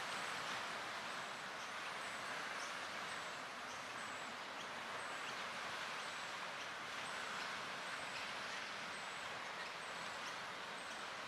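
Steady outdoor ambience: an even hiss of background noise with a faint high chirp repeating about once a second.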